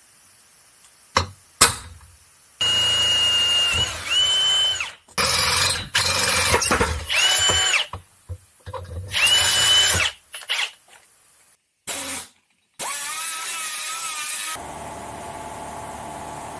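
Cordless drill boring holes into a mild-steel exhaust pipe in a run of short bursts, the motor's whine rising as each burst starts. Two sharp knocks come just before the drilling.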